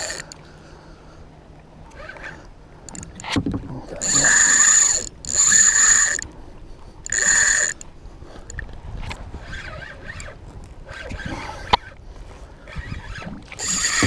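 Shimano Sustain 5000XG spinning reel's drag screeching in three bursts of up to a second each as a hooked fish pulls line off, with quieter mechanical clicking of the reel between and after the runs.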